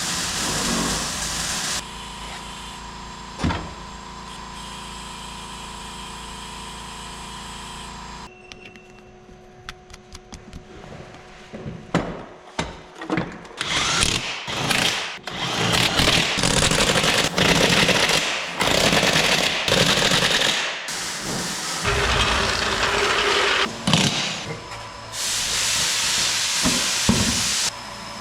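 Power tool running in several loud bursts, among knocks and clatter of tools on metal.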